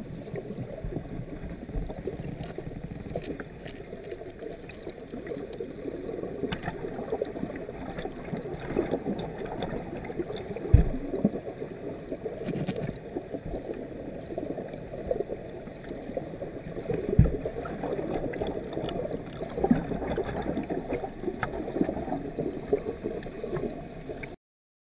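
Shallow stream water heard through an underwater camera: a steady, muffled rush with most of its sound low down, broken by two sharp low thumps about eleven and seventeen seconds in. It cuts off abruptly just before the end.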